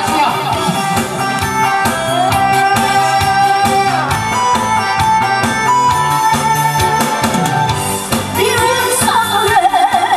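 A woman singing a Korean trot song into a microphone over a recorded backing track, amplified through a PA system; near the end her voice wavers in a wide vibrato.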